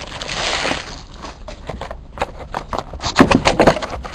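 A trading-card box being opened and handled: a short rustle of wrapping, then scrapes and taps of cardboard, with a cluster of louder knocks about three seconds in.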